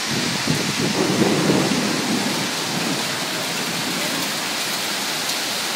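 Heavy hailstorm: hail and rain pounding pavement and grass in a steady, dense rush of noise, with a low rumble swelling between about half a second and two seconds in.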